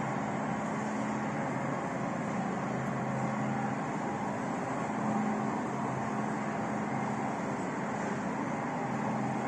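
Steady hum and hiss of a supermarket interior, the running of refrigerated display cases and air handling, with a few low steady tones and no break or change.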